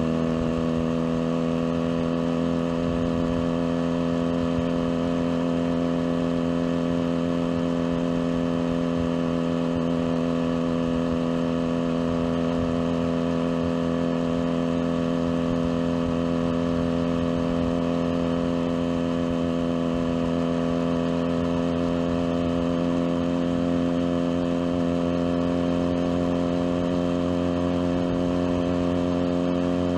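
Junak M11 Cafe motorcycle engine running steadily at cruising speed, its pitch creeping slightly higher over the stretch.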